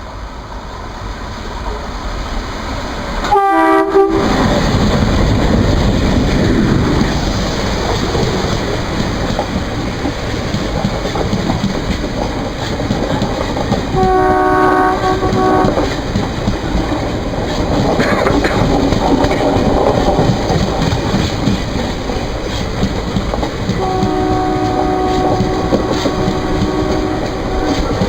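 A WDM3D ALCO diesel locomotive's horn sounds with a funny, bending pitch a few seconds in, then the express runs through with its coaches rattling over the rails. A second horn blast comes about halfway through, and near the end a train horn gives a string of short toots.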